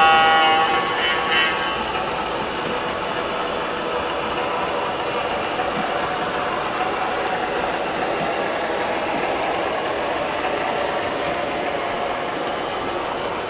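O gauge model freight train rolling past on three-rail track, led by MTH Premier Seaboard Centipede diesel locomotives: a steady rumble of wheels on rail mixed with the locomotives' onboard diesel engine sound. The tail of a horn blast dies away in the first second.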